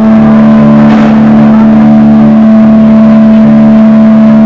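Heavily distorted electric guitar and bass holding one loud, unchanging drone chord, with a brief cymbal-like crash about a second in.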